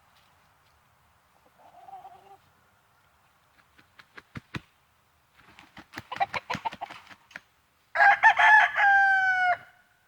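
A rooster crows once near the end, a loud call of about a second and a half that falls slightly at its close. Before it come a short call, a few sharp clicks and a quick run of clucks.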